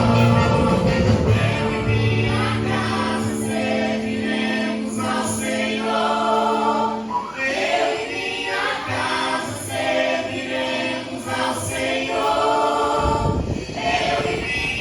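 A group of voices singing a gospel praise song over instrumental accompaniment. The low bass drops out about halfway through and comes back near the end.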